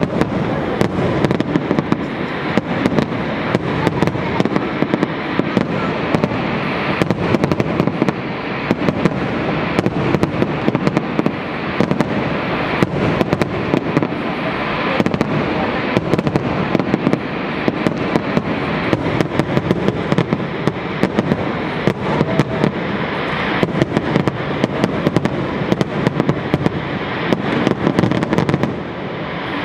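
Fireworks display: a rapid, unbroken barrage of bangs and crackling over a steady rumble, easing just before the end.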